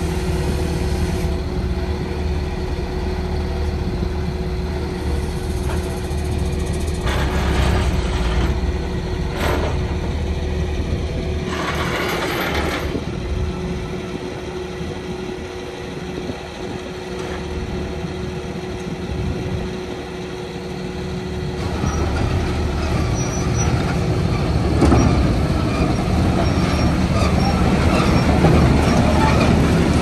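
Heavy diesel truck engine, a Mercedes-Benz MBE900, running steadily, with three short hisses of air in the middle. The engine sound grows louder in the last third.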